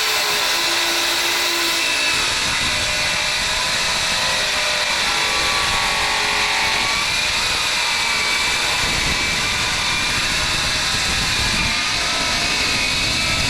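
Power saw with a carbide blade cutting steadily through an aluminum LED light housing clamped in a vise, the motor and blade running continuously under load.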